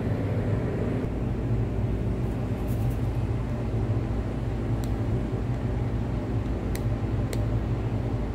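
Steady low machine hum, with a few faint ticks near the end.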